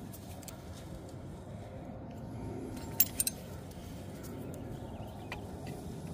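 Two sharp clicks close together about three seconds in, with a few fainter ticks, as the plastic vapor canister purge valve is handled and fitted to its bracket, over steady low background noise.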